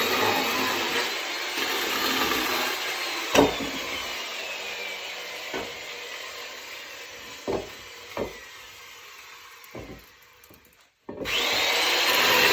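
Chainsaw cutting firewood, its whine falling and fading, with several sharp knocks of wood. After a brief break near the end, the saw runs loud again.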